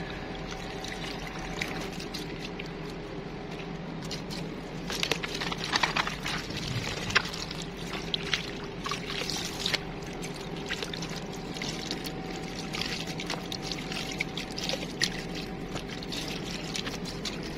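Water pouring and splashing as potatoes, tomatoes and green chillies are washed by hand, with scattered light knocks and splashes that are busiest between about five and ten seconds in. A steady low hum runs underneath.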